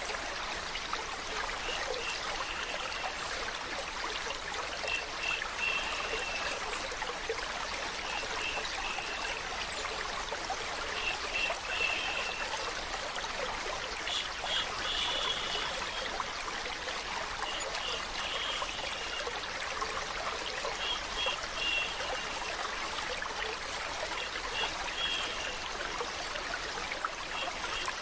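Steady flow of running water, like a stream or trickle, with clusters of short high notes recurring every few seconds.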